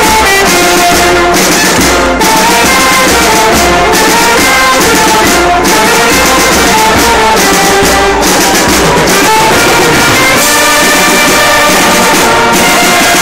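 A banda, a street brass band, playing a lively tune at full volume from right among the players: saxophones and brass over drums and cymbals.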